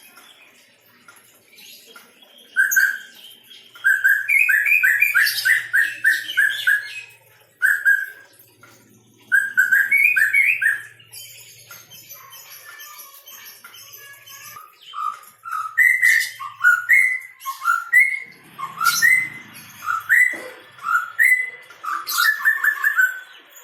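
White-rumped shama (murai batu) singing: phrases of quick, repeated whistled notes broken by short pauses, with a quieter stretch in the middle before the song picks up again.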